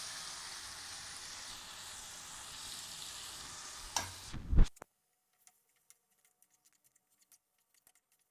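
Onion, tomato and ginger-garlic masala sizzling and being stirred in a frying pan, with a steady hiss. About four and a half seconds in come two loud knocks against the pan, and the sizzle cuts off suddenly, leaving only faint scattered ticks.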